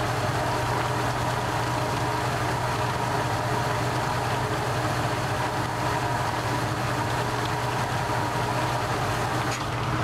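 1949 Maytag AMP automatic washer running steadily through its flush rinse: a constant motor hum, with the drain pump sending sudsy rinse water gushing out of the drain hose into a laundry sink.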